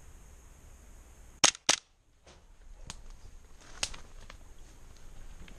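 Airsoft pistol firing two quick shots, about a quarter second apart, followed by a few fainter clicks.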